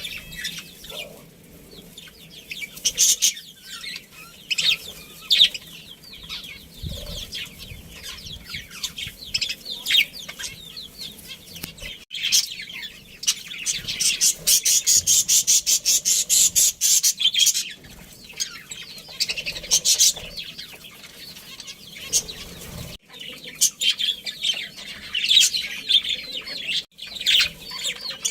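Budgerigars chirping and chattering in short high calls, with a fast run of ticking chatter lasting a few seconds midway.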